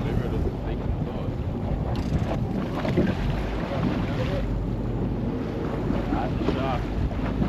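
Wind buffeting the microphone on the deck of a boat at sea, a steady low rumble with gusts.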